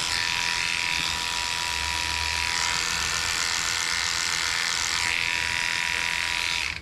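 Cordless dog grooming clipper running steadily, clipping out a matted patch of hair behind a dog's ear; its tone shifts a couple of times as it works, and it switches off near the end.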